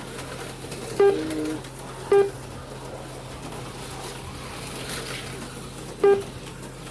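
Short pitched beeps from the slot-car race timing system, three of them, at about one, two and six seconds in; the first is followed by a brief lower tone. A steady low hum from the track setup runs underneath.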